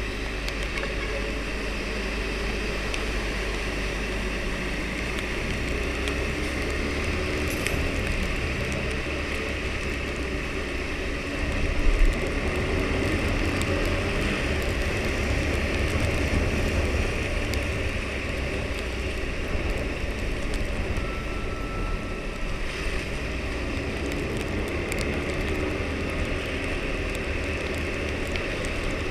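Husqvarna Svartpilen 401's single-cylinder engine running on its stock exhaust while riding, mixed with steady wind and road noise. A brief louder surge comes about twelve seconds in.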